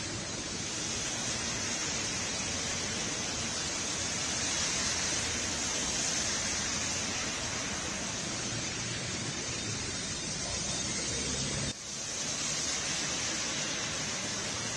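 Steady hiss of rain and traffic, with vehicles' tyres splashing through floodwater on a waterlogged road. The noise breaks off for an instant about twelve seconds in, then carries on.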